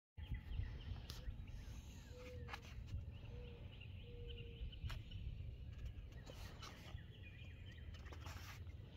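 Outdoor ambience of birds chirping and calling, including three short, steady low notes a couple of seconds in, over a low wind rumble on the microphone. Scattered sharp clicks and crackles come from a plastic blister pack being handled.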